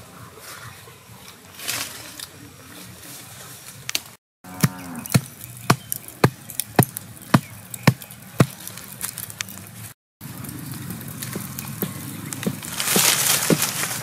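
Leaves and branches rustling, then a run of sharp knocks, about two a second, as a green bamboo stem held in the hand is chopped. Then a wood fire crackling and hissing.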